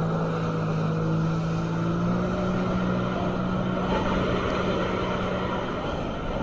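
Jet ski engine running steadily at speed over a constant rush of wind and water spray. The engine note drops away near the end, and a short thump follows.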